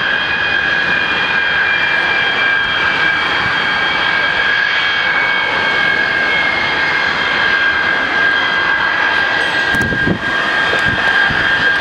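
Tupolev Tu-134A-3's Soloviev D-30 low-bypass turbofan engines running, a steady rushing noise with a high-pitched whine of several tones, one of which slowly sinks a little in pitch. A brief low rumble comes in about ten seconds in.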